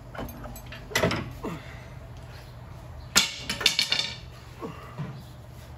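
Metal clinks and knocks of hand tools and suspension parts being worked under a car: one knock about a second in and a quick cluster of clanks past the middle, with a few short falling squeaks between them over a low steady hum.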